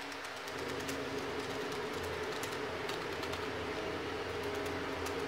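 A felting needle stabbing repeatedly through wool into a foam sponge, giving an irregular run of quick, soft ticks. A steady low hum runs underneath.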